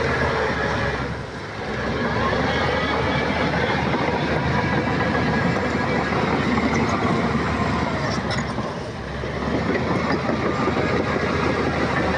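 Heavy earthmoving machinery working, a loud, dense mechanical clatter that eases briefly twice.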